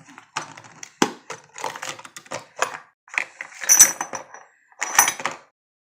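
Packaging rustling and the meat grinder's loose metal parts clattering and clinking as a packet of accessories is opened and handled. The loudest are two sharp, ringing metal clinks, about four and five seconds in.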